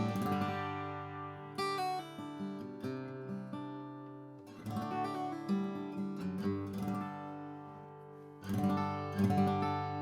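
Atkin L36 acoustic guitar, a Sitka spruce top with mahogany back and sides, being strummed: chords are struck and left to ring. Fresh, louder strums come a little after a second and a half, just before halfway and again near the end.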